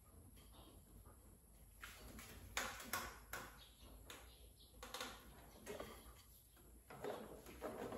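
Faint, scattered clicks and scrapes of a filter wrench with a wooden handle against a plastic water-filter housing as it is fitted around the canister and turned to tighten it.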